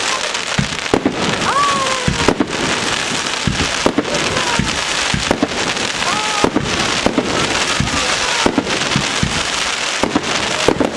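Fireworks display: a continuous crackling and fizzling of burning shells, with sharp bangs of bursting shells about once a second.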